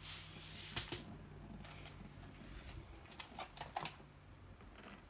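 Plastic cover film on a diamond painting canvas crinkling and crackling as the canvas is handled, with a brief hiss at first and scattered sharp crackles about a second in and again just before four seconds.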